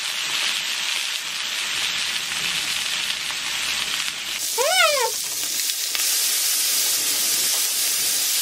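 Pork sizzling steadily in a frying pan as it grills. About halfway through, a person makes one short 'mm' that rises and falls in pitch.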